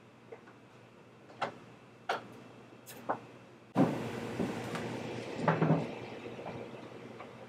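A few light taps of pieces of soft dough and fingertips set down on a stainless-steel worktable. About a second before the middle, a louder, even room noise comes in suddenly, with a short cluster of knocks past the middle.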